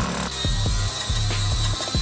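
Background music with deep sustained bass notes and a repeating beat of short low hits.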